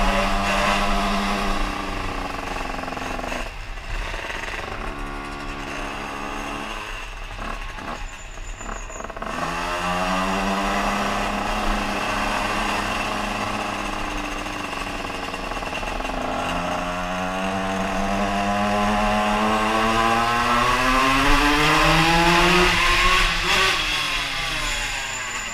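Two-stroke moped engine under way, heard from the bike: the revs fall and rise several times, with a long climb in pitch in the second half and a drop in revs near the end.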